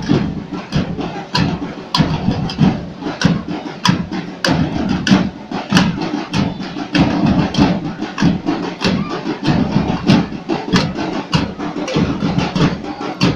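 A carnival comparsa's drum section playing a fast, steady beat of sharp hits, about two strong hits a second, over a dense low drum rumble.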